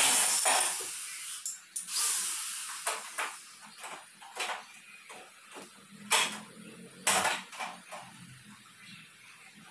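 Corded electric drill running, then winding down and stopping within the first second. After it come scattered light clicks and knocks as aluminum framing pieces are handled and fitted at the base of a post.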